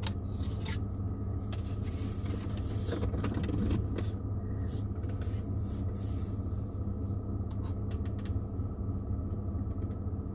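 Truck engine idling steadily, heard from inside the cab, with scattered light clicks and rustles from cables and a mount being handled.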